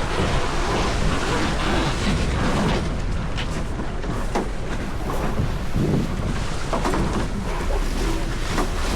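Wind buffeting the microphone over the rush of water along a small sailboat's hull, with scattered short knocks and rustles from the boat's gear.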